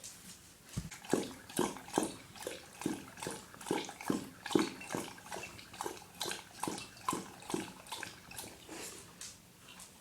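A dog lapping water from a bowl, a steady run of wet laps at about two and a half a second that fade out near the end.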